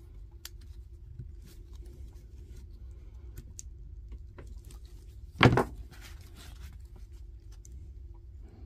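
Faint metallic clicks and scraping as needle-nose pliers work the metal connector strips on an 18650 cell pack, over a steady low hum, with one loud sharp knock about five and a half seconds in.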